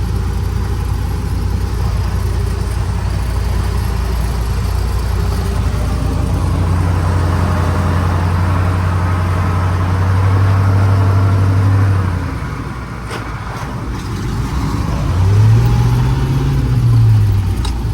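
Logging truck engine running steadily, growing louder partway through, then easing off with a couple of clicks. Near the end comes a rev whose pitch rises and falls.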